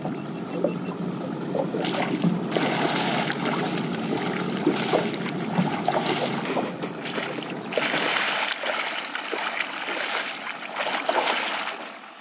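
Water splashing and sloshing in bursts against the side of a plastic fishing kayak, with small knocks, as a hooked whitetip shark thrashes right beside it.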